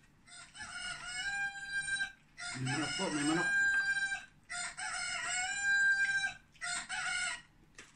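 Rooster crowing: four long crows in a row, each rising at the start and then holding a steady note, the last one short.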